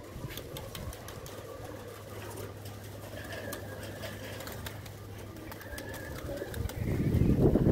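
Pigeons cooing, with scattered light clicks and a louder low sound in the last second.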